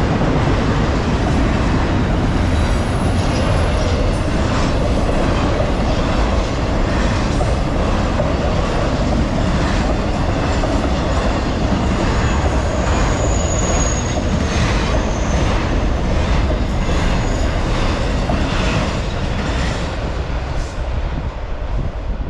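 Intermodal freight cars of a long freight train rolling past at about 46 mph: a steady rush and rumble of steel wheels on rail with faint clicking over the rail joints. A brief high wheel squeal comes a little past the middle, and the sound eases slightly near the end.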